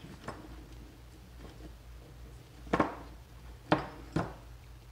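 Three short sharp clicks and knocks from a Garmin DC30 dog tracking collar's parts knocking together as it is handled and taken apart, once a little past halfway and twice more close together near the end.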